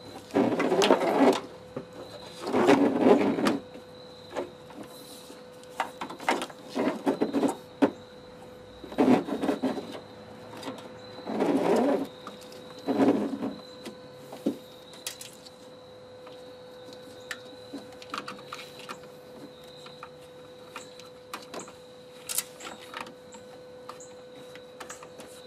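Rustling and scraping from wiring in plastic loom being worked by hand through a truck's engine bay. It comes in about six short bursts over the first half, then only light clicks and ticks, over a faint steady tone.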